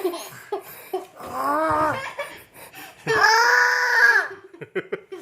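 A young child's voice: a wavering, drawn-out vocal sound about a second in, then a louder, longer high-pitched one around three seconds in, with short bits of babble around them.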